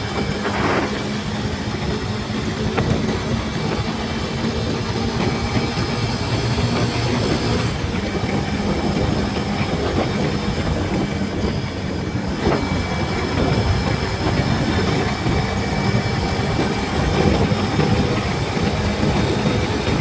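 Motorcycle riding at speed: a steady rushing rumble of engine, wind and road noise.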